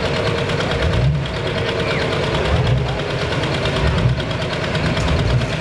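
Diesel engine of a hot stock pulling tractor idling with a steady, pulsing rumble and a knocking beat, the tractor at rest on the sled at the end of its pull.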